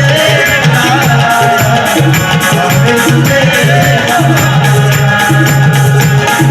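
Devotional folk music with no words: a hand drum plays a steady beat under evenly spaced jingling metal strokes, with held steady tones and a gliding melody line above.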